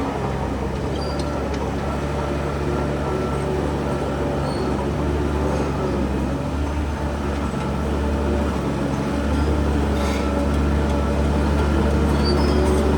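Heavy diesel engine of earthmoving machinery running steadily, a little louder from about eight seconds in.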